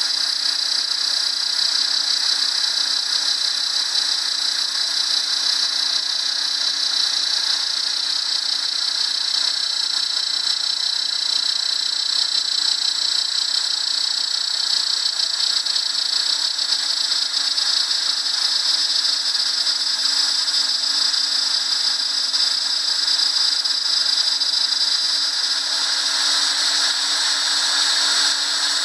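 Compact router spindle on a small CNC gantry mill running at high speed while milling a metal plate clamped in a vise: a steady high-pitched whine, turning hissier near the end.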